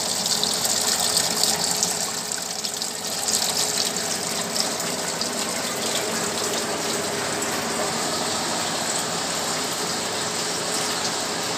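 Water lifted by the repaired water pump of a Kenstar Little Cooler DX air cooler, gushing and trickling steadily down inside the cooler, with a faint steady hum under it. The pump is now working again and lifting water to the top.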